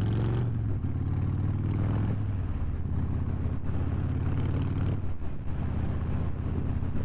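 Harley-Davidson cruiser's V-twin engine running steadily as it rides along at road speed, heard from the rider's seat, with wind rush over the microphone.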